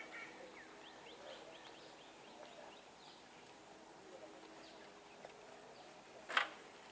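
Faint trackside ambience: small birds chirping and a steady high tone, with one sharp knock about six seconds in. The distant approaching train is not clearly heard.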